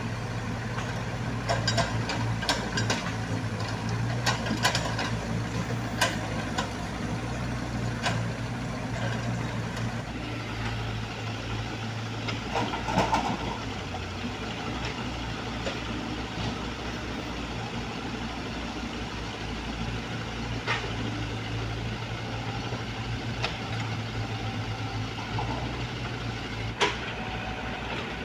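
Diesel engine of a Komatsu mini excavator running steadily while it loads a dump truck, with sharp knocks as soil and rocks drop from the bucket into the steel truck bed, most of them in the first ten seconds.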